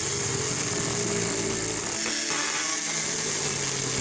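Dremel Multi-Max MM30 oscillating multi-tool running under load, its blade cutting through a thin board with a loud, steady noise.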